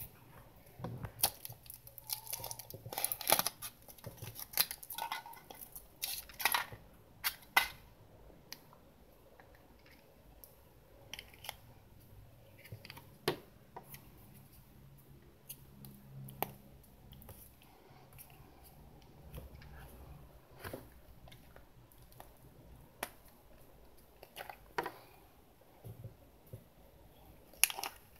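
Foil wrapper of a Kinder Surprise chocolate egg crinkling and tearing as it is peeled off, in dense bursts for the first several seconds. Then sparse clicks and taps as the yellow plastic capsule inside is handled and opened, with a short crinkle near the end as the toy's plastic wrapping is pulled out.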